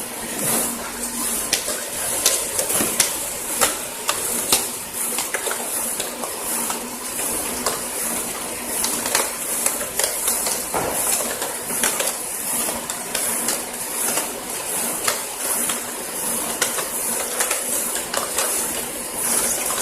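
Automatic cup shrink-film wrapping machine running: a steady high hiss with frequent irregular clicks and clacks from its mechanism.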